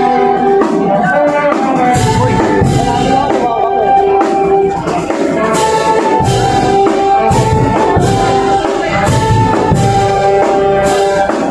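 Brass band playing a melody in long held notes, trumpets and saxophones over sousaphone bass, with a steady drum beat.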